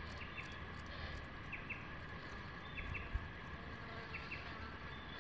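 A bird calling faintly, a short high double chirp repeated about every second and a quarter, over a quiet steady outdoor background.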